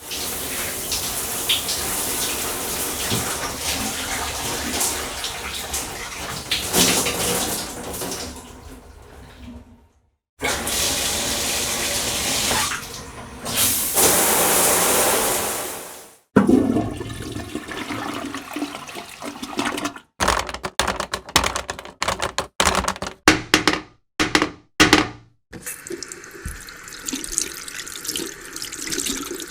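A sequence of separate running-water sound effects: two stretches of steady gushing water split by a brief silence about ten seconds in, then a stretch of short, stop-start splashes.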